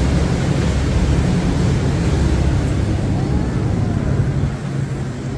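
Open canal tour boat's motor running steadily: a low drone under a rushing noise, easing slightly near the end.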